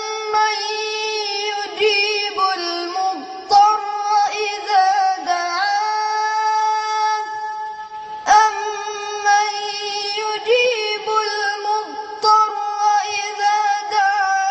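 A boy singing solo in a high, clear voice, unaccompanied: long held notes with ornamented turns, in two long phrases, the second beginning about eight seconds in.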